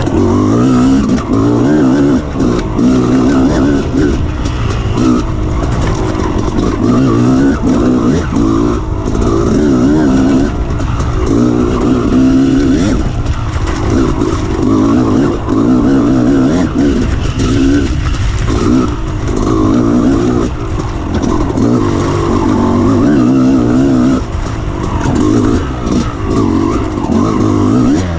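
Dirt bike engine running hard on a rough trail, its pitch rising and falling constantly with the throttle, with short dips as the rider backs off.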